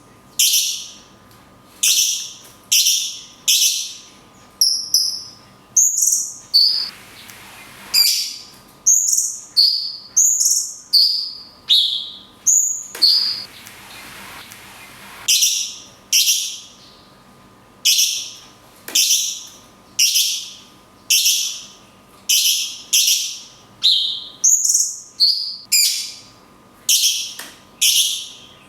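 Cucak cungkok (blue-winged leafbird) singing: a long series of loud, sharp notes, each falling in pitch, about one a second. Shorter, higher chirps are mixed in through the middle, and there are two short pauses.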